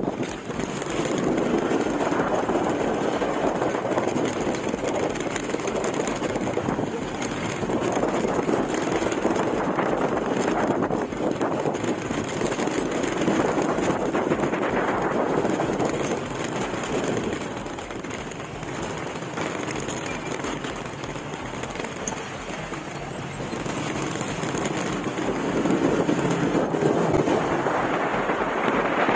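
Riding a motorcycle along a road: the engine running steadily under rushing wind and road noise on the microphone, with a rough crackle from the wind buffeting. It eases a little for a few seconds past the middle, then picks up again.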